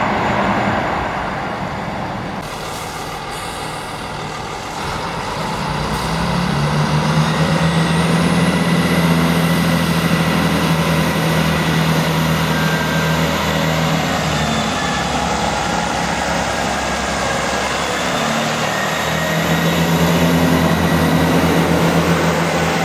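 Train noise fades away over the first few seconds. Then, from about six seconds in, the underfloor diesel engines of a Networker Turbo diesel multiple unit run with a steady low drone, with a high whine rising briefly as it starts, and the unit moving off near the end.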